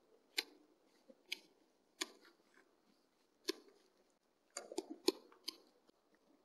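Faint, irregular sharp clicks and cracks from a red fox moving and feeding at a bait pile, with a quick run of them near the end.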